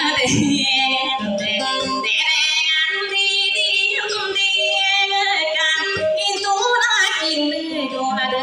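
Dayunday music: a woman singing a high, wavering, ornamented melody over acoustic guitar accompaniment.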